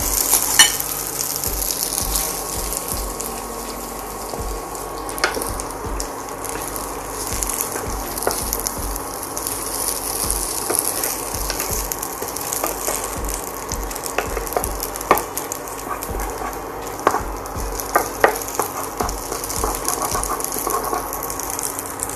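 Spaghetti and bacon sizzling in hot oil in a nonstick frying pan as they are tossed and stirred with tongs and a wooden spatula, with scattered clicks and knocks of the utensils against the pan.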